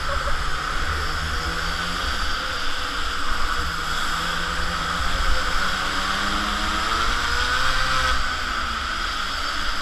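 Mini moto's small two-stroke engine running hard as the bike laps, heard from a camera mounted on the bike, its pitch rising and falling with the throttle through the corners.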